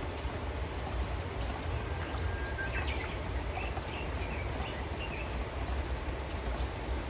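Steady rush of running water with a low rumble beneath it. A bird calls in the middle: one long thin whistle, then a few short chirps.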